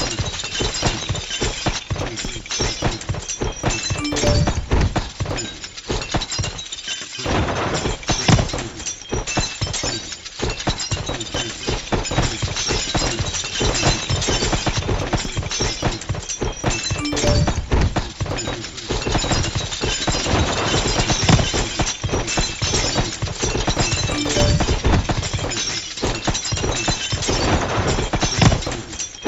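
Cartoon fight sound effect: a dense, nonstop flurry of punches, smacks and crashing, shattering hits, with a brief lull about seven seconds in.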